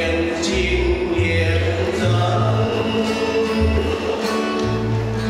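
A choir sings a hymn to instrumental accompaniment, with held notes over a deep bass line that changes every second or so.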